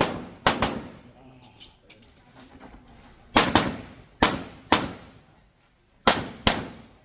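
Pistol shots fired in quick succession, about seven in all in uneven pairs and singles, each with a short ringing echo.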